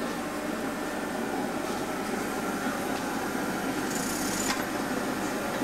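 Glassblowing furnace's burner running with a steady rushing noise, and a short high hiss about four seconds in.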